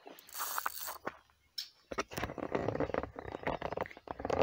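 Rustling, then rapid irregular clattering and knocking from a camera being handled and moved about. The clatter starts about two seconds in.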